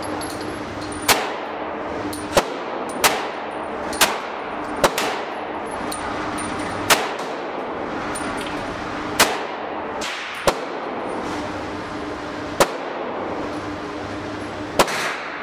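Handgun fired slowly at an indoor range: about ten single shots at uneven intervals, from under a second to over two seconds apart, each echoing briefly off the range walls. A steady low hum runs underneath.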